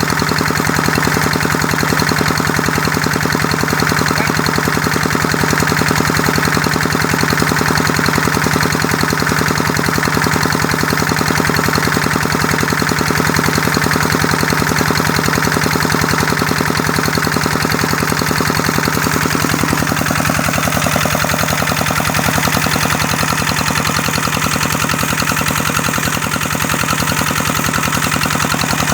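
Kubota engine running steadily with a fast, even knocking beat. Its tone shifts slightly about twenty seconds in.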